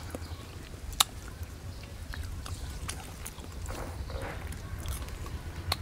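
A man chewing crisp star gooseberry fruit, with scattered sharp crunches and clicks, the loudest about a second in and just before the end.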